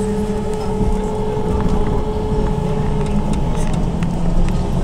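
Cabin noise of a BKM 321 trolleybus under way: a steady low rumble of the road and body, with a steady electric whine that fades out about three seconds in.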